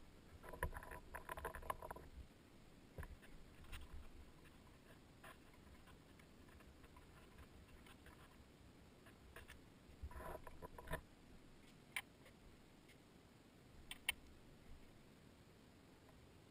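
Mostly quiet, with faint scratching and rustling from hands working among the hoses and wiring of a car's engine bay, and a few sharp clicks of tools or parts, the clearest about twelve and fourteen seconds in.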